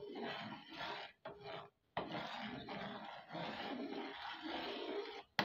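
Steel spoon stirring thickening custard in an aluminium pot, scraping steadily against the bottom and sides, with a couple of brief silent gaps. The stirring is kept up without stopping on low heat so that no lumps form while the custard thickens.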